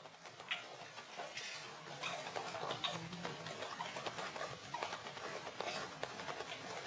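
A macaque monkey giving a few short, faint squeaks, over soft pattering and rustling.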